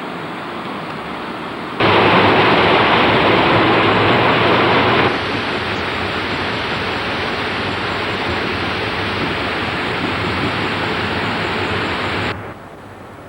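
Steady rushing noise that jumps sharply louder about two seconds in, drops a step around five seconds, and falls again near the end.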